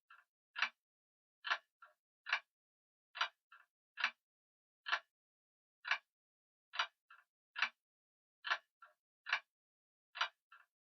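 Grandfather clock ticking steadily, a sharp tick a little faster than once a second, each usually followed by a fainter echoing click from the escapement.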